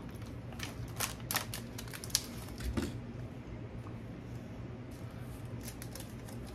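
Scattered light clicks and crinkles from a foil snack-bar wrapper being handled, in two clusters, over a steady low hum.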